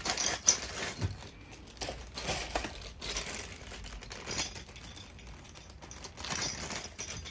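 Plastic packaging crinkling and rustling, with scattered light clicks and taps of small plastic parts being handled.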